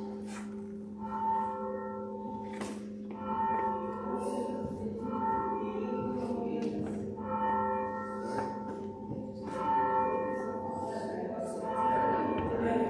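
Church bell tolling: single strokes about every two seconds, six in all, each ringing on and fading before the next.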